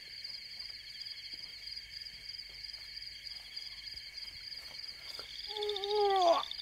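A steady, pulsing chorus of crickets, as a night-forest ambience. Near the end a short, louder pitched sound wavers and then drops away sharply.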